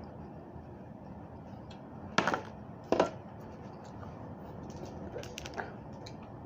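Two short, sharp crunching clicks about a second apart, then a few faint clicks, over a steady background hiss: handling and eating raw vegetables at a table.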